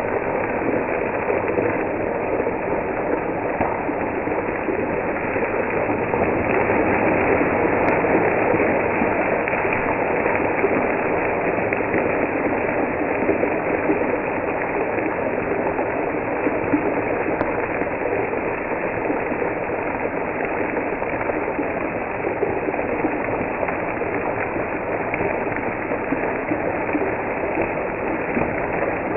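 Fish steaks shallow-frying in hot oil in a pan, a steady dense sizzle and crackle.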